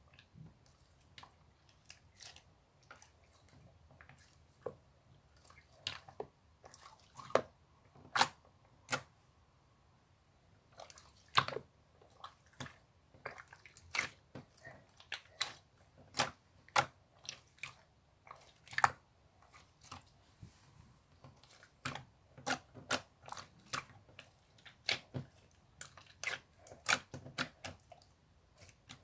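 Clear slime being squeezed and pressed by hand, giving irregular sticky clicks and pops, some in quick runs and a few louder ones.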